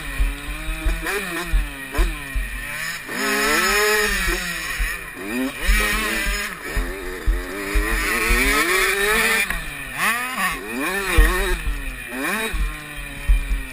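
Dirt bike engine revving up and falling back repeatedly as it is ridden round a motocross track, its pitch rising and dropping every second or two with gear changes and throttle, over low buffeting thuds on the microphone.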